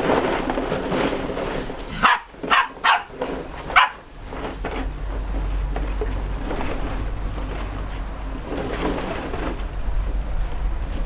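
Bearded Collie puppies barking in four short, sharp barks about two to four seconds in, amid the rustle of plastic play balls being pushed about in a ball pool. A steady low rumble runs under the second half.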